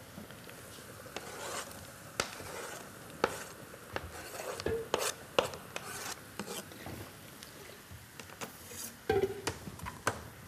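Cooking utensils clinking and knocking against pans as food is stirred and handled, with a faint sizzle from chopped onions frying in a pan. Scattered sharp clicks, with a few louder knocks about 2, 3, 5 and 9 seconds in.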